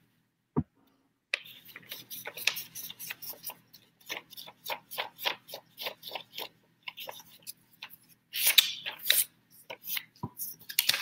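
Scissors snipping copy paper in a quick, irregular run of small crisp clicks. The paper rustles louder about eight seconds in.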